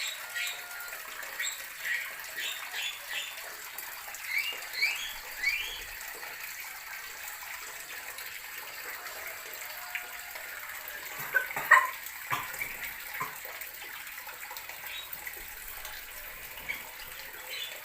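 Small birds chirping over a steady rushing hiss: several quick, rising high chirps in the first six seconds and one louder, sharp call about twelve seconds in.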